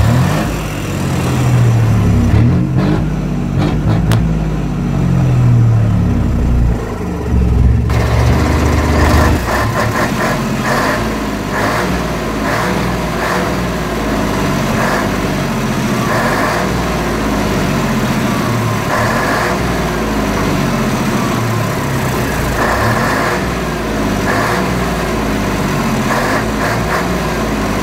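Old Mercedes-Benz NG 1222 truck's diesel engine revved up and down several times, then running on steadily for the rest of the time.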